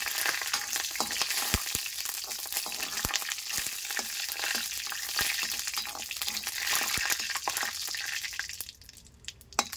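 Curry leaves frying with cumin and fenugreek seeds in hot oil in a metal kadhai, sizzling steadily while a flat metal spatula scrapes and clicks against the pan as they are stirred. The sizzle goes quieter near the end.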